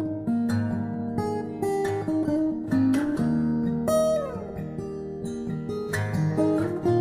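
Background music: an acoustic guitar picked and strummed, with one note sliding down in pitch about four seconds in.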